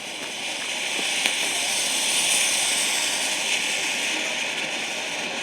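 Ground firework fountain spraying sparks with a steady hiss that builds over the first couple of seconds and then holds, with a few faint crackles.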